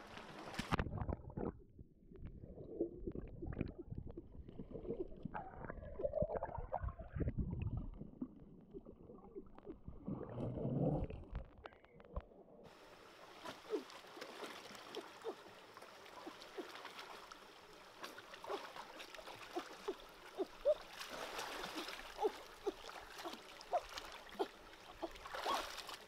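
Water sloshing and splashing as a person wades through a stream pool and gropes under rocks by hand. About halfway the sound changes to a steady stream rush with small splashes and trickling drips.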